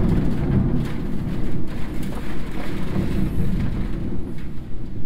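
Thunderstorm: a low, continuous rumble that eases slightly over the few seconds, with a fainter hiss above it.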